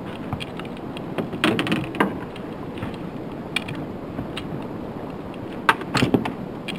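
Short clusters of clicks and knocks from gear and catch being handled on a fishing boat's deck, about a second in and again near the end, over a steady hiss of wind and water.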